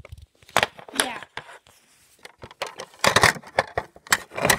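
Handling noise from the recording phone being moved about and set down: a series of sharp knocks, taps and rubbing, thickest near the end.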